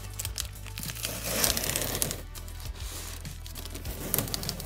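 Clear plastic packing tape being peeled off a cardboard box, crackling and ripping in several uneven pulls, the longest about a second in.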